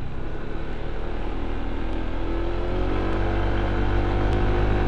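Honda ADV 160 scooter's single-cylinder engine pulling steadily uphill through its CVT, its pitch rising gradually over the second half as the revs build.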